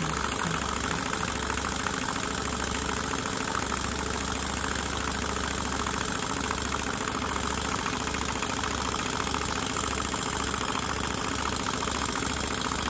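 Stuart S50 model mill engine, a single-cylinder horizontal engine, running steadily and fast on compressed air, its exhaust beating in a quick even rhythm. It sounds a lot healthier, the knocking from the piston gone now that the cylinder has more oil in it.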